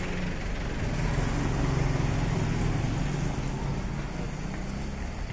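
A large engine running steadily with a low hum, over a broad background rumble, slightly louder in the middle and easing off toward the end.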